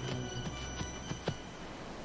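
A few light footsteps on a wooden step over faint soft tones, with a low rumble that dies away about three quarters of the way through.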